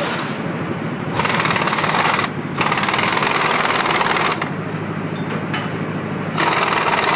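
A power tool with a fast rattling stroke runs in three bursts: from about a second in, again after a short break, and again near the end. A steady low engine hum runs underneath.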